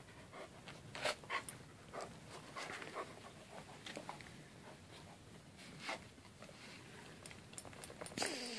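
Great Pyrenees dog romping through deep snow: faint panting and scattered crunching strokes, with a brief louder sound that falls in pitch near the end.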